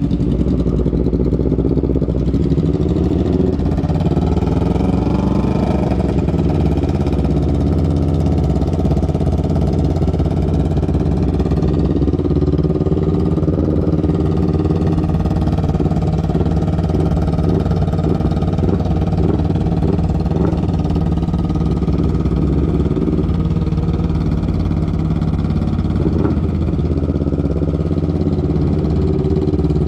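250 cc parallel-twin sport motorcycle engine running steadily at low revs, its pitch rising and falling slightly with the throttle.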